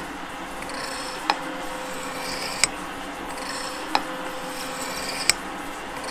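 Gould & Eberhardt metal shaper running and taking a cut on a steel block: a steady machine hum with a sharp click about every 1.3 seconds, once each stroke of the ram.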